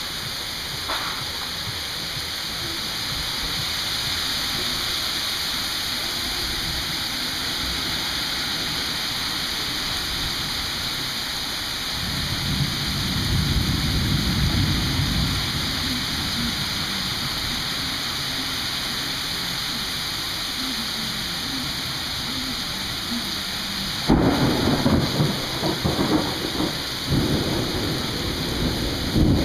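Steady rain throughout, with a low rumble of thunder swelling about halfway through. Near the end a sudden loud clap of thunder breaks in, cracking several times in a row.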